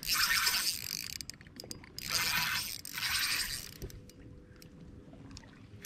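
Spinning reel working against a hooked bass being fought to the boat: two stretches of reel noise, one in the first second and another from about two to three seconds in, with lighter scattered knocks after.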